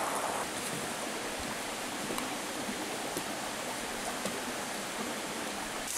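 A steady, even rushing noise, with a few faint ticks.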